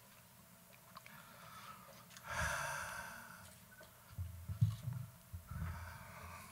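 A man's long sigh close to the microphone about two seconds in. Near the end come low thumps and rustling as the microphone is gripped and handled.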